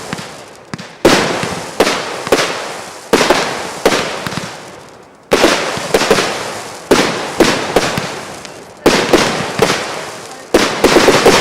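Fireworks display: aerial shells bursting one after another, about fifteen loud bangs at irregular intervals, each trailing off before the next.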